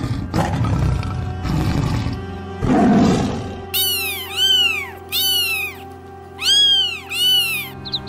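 A cat meowing five times in quick, high, rising-and-falling calls over background music. Before the meows come three rough, hiss-like bursts.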